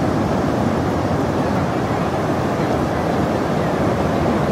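Steady ocean surf washing onto the shore, mixed with wind noise on the microphone.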